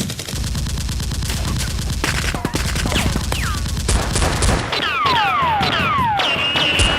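Rapid gunfire: a fast stream of shots in the first two seconds, then scattered shots, then several whistling tones that fall steeply in pitch.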